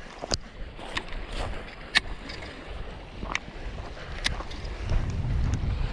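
Wind rumbling on the microphone, stronger near the end, with several sharp clicks from handling, the loudest about two seconds in.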